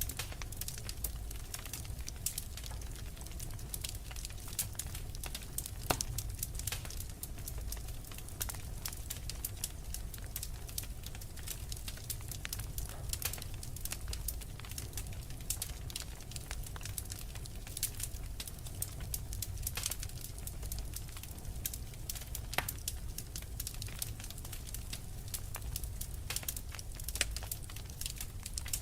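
Wood fire crackling steadily: many small irregular snaps with a few sharper, louder pops, over a low steady rumble.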